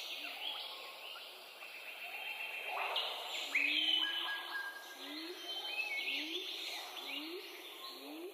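Chorus of several rainforest birds calling over one another, with chirps and whistled notes. From about halfway through, a low, short rising call repeats roughly every 0.7 seconds.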